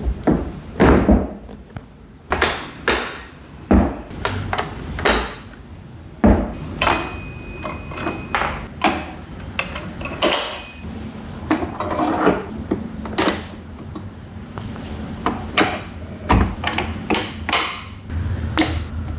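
Irregular knocks, clicks and clanks of rigging hardware and speaker cabinets being handled while a line array loudspeaker system is set up. A thin high beep sounds for about a second, around seven seconds in.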